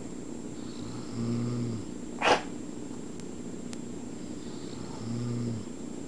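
A man snoring in his sleep: two low, droning snores about four seconds apart, each lasting under a second. A single short, sharp click falls between them and is the loudest sound.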